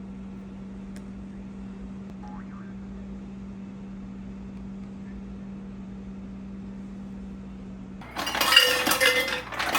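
A steady low electric hum that stops about eight seconds in, followed by a loud clatter of dishes and utensils.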